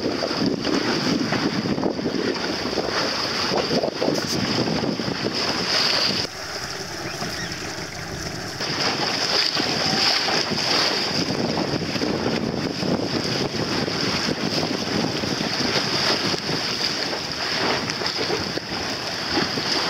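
Wind buffeting the microphone and water rushing and slapping along the hull of a small sailing boat under way, with a steady high hiss above it. The wind noise eases for a couple of seconds about six seconds in.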